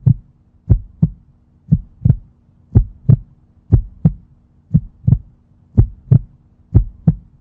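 Heartbeat sound effect: low double thumps, lub-dub, about once a second, over a faint steady low hum. It stops abruptly at the end.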